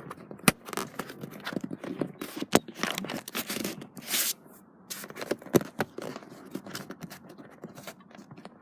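Car seat parts being handled by hand: a few sharp clicks among irregular scraping and rustling of plastic trim and seat fabric, as the rear headrest and child-seat fittings are worked.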